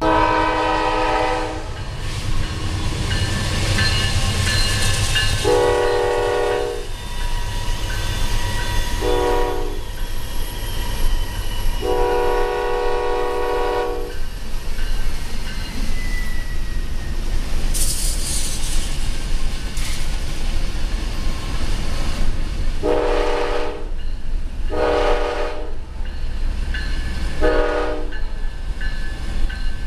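GE Dash 9-40CW diesel locomotive's air horn sounding a chord of several notes in the grade-crossing pattern (long, long, short, long), given twice. Underneath is a steady rumble of road and wind noise from a car keeping pace alongside the train.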